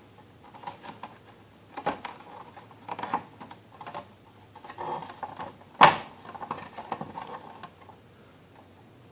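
Plastic clicks and knocks as a garage door opener's circuit board is worked out of its plastic housing and clips, with one sharp snap about six seconds in.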